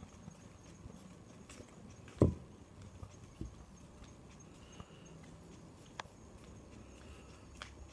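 Footsteps on an asphalt path and handheld-phone handling bumps: a few irregular taps over faint steady background noise, with one louder low thump about two seconds in.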